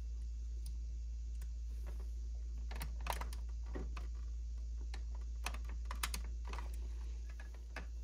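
Faint, scattered small clicks and taps of fingers and a paper clip working inside the opened plastic housing of a Keurig K-Supreme coffee maker, pressing into the thermal switch's reset hole, over a steady low hum.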